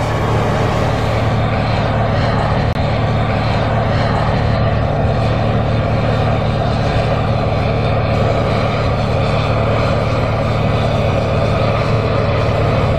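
John Deere 8R tractor's diesel engine running steadily under load while pulling a tillage implement through the ground.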